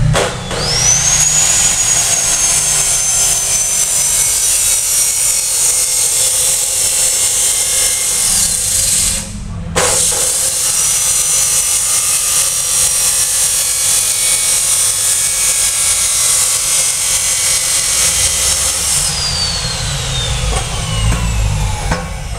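Angle grinder cutting into a metal exhaust pipe, a high whine over harsh grinding noise. It spins up, sags slowly under the cut, stops for a moment about nine seconds in, starts again, and winds down near the end.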